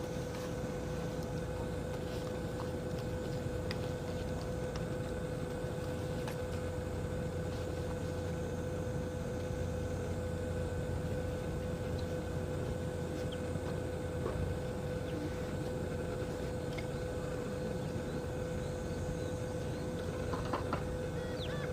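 A boat's engine running steadily: a constant hum with a steady tone over a low rumble.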